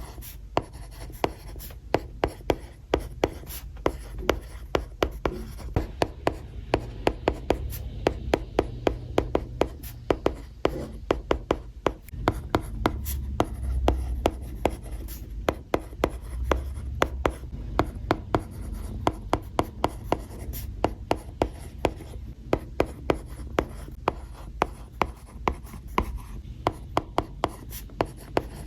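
Capacitive stylus writing on an iPad's glass screen: a quick, irregular run of sharp taps from the hard tip as strokes are made, over a low steady hum.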